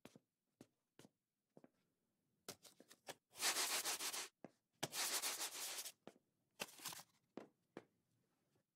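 Faint cartoon sound effects of someone easing cautiously down slippery wooden stairs: scattered soft taps, and two long rubbing, scraping sounds, one about three and a half seconds in and the other about five seconds in.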